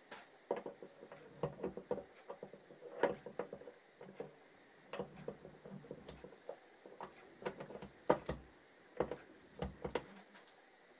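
Irregular light metallic clicks and knocks as a motorcycle gearbox shaft and its gears are handled and settled into an aluminium crankcase.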